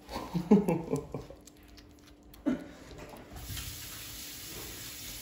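A brief voice murmurs near the start. A little after three seconds in, a tap starts running into a sink as a steady hiss and keeps going.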